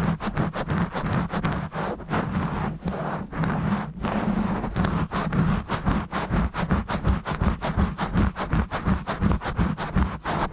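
Rough, rapid scratching and rubbing directly on a microphone, a run of quick strokes over a low handling rumble, the strokes coming faster about halfway through.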